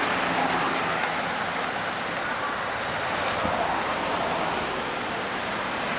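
American cars and vans driving slowly past one after another: steady traffic noise of engines and tyres.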